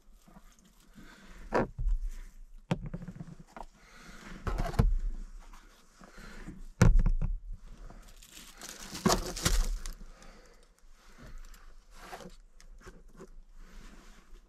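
Bottles and food containers being set down on a plastic cooler lid: several separate knocks and thuds, with a plastic bag rustling for a couple of seconds about eight seconds in.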